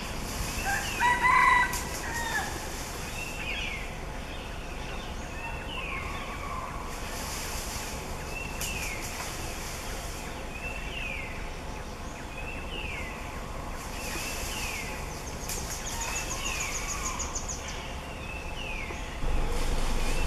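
Forest birdsong: a bird repeats a short falling whistled note about once a second, with a louder call about a second in. A high insect buzz comes and goes behind it, and a fast ticking trill runs briefly about sixteen seconds in.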